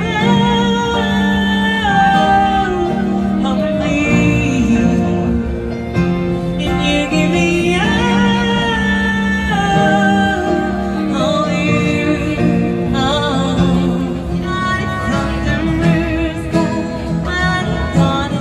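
A woman singing live into a microphone, amplified through a small PA, with acoustic guitar accompaniment; her held notes waver with vibrato.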